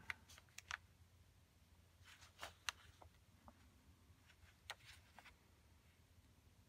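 Near silence, with a few faint light taps and short soft scratches from a watercolour brush being handled and touched to the paper.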